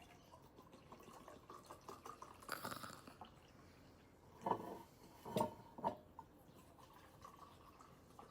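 Liquid being poured into a glass, then three sharp knocks or clinks a little over halfway through.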